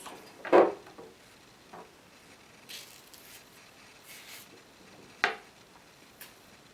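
Peeled bananas handled and set into a bowl: a soft knock about half a second in, then faint rustling and light taps, and a sharp click about five seconds in.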